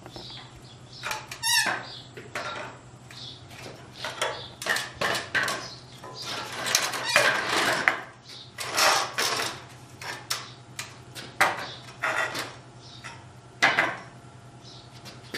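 Surveying tripod under a transit level being opened and set up: its legs knock and clatter in short bursts and scrape as they are spread and planted on a concrete floor. A steady low hum runs underneath.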